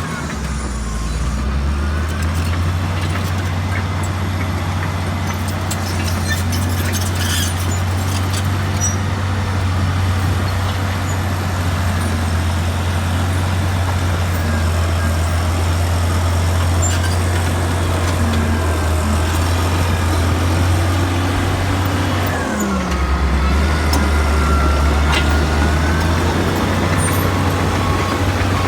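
Bulldozer's diesel engine running with a steady, heavy low drone. About three-quarters of the way through, the engine note drops and shifts, and a faint whine dips and rises.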